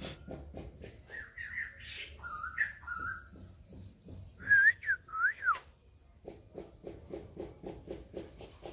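Garden birds calling and whistling: a run of chirps, then several loud whistled notes that slide up and back down, about halfway through. A rapid low pulsing, about five beats a second, runs at the start and again from about two-thirds of the way in.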